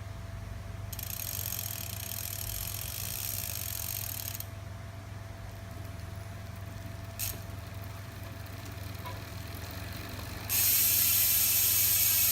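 Project 321 rear bicycle hub, with six magnetic pawls and 216 points of engagement, freewheeling: a fast, high-pitched ratcheting buzz for about three and a half seconds, then a single click, then the buzz again, louder, from about ten and a half seconds in.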